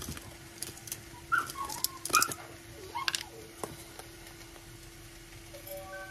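A dog gives a few short, high whines, rising and falling, over light clicks and taps of spice containers handled on a countertop. A steady low hum runs underneath.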